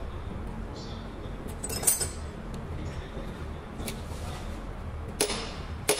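Metal clinks and clicks of pliers and hand tools against a tractor dual-clutch pressure plate as its release fingers are adjusted: a sharp clink about two seconds in and two more near the end, over a steady low hum.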